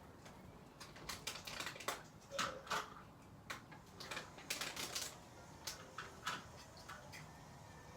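A series of irregular light clicks and taps, some closer together than others, starting about a second in and stopping near the end.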